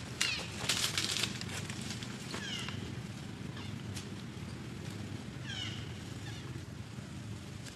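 Baby long-tailed macaque giving short, high-pitched squealing cries that fall in pitch, several times over, the crying of a hungry infant. Dry leaves crackle in the first second.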